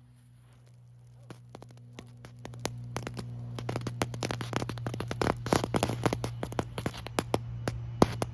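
Goldfish novelty ground firework burning: a hiss that builds steadily with a growing spray of crackling pops, and one sharper crack about eight seconds in.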